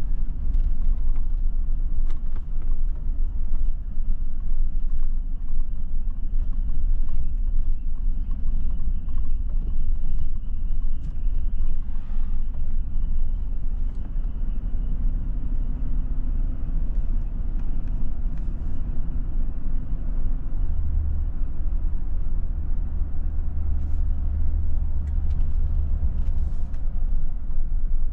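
Car driving along a road, heard from inside the cabin: a steady low rumble of engine and tyres, which swells a little louder for several seconds near the end.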